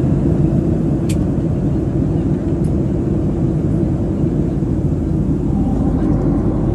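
Steady cabin noise of a jet airliner in cruise: engine and airflow noise, heavy in the low end and even throughout. A short click about a second in.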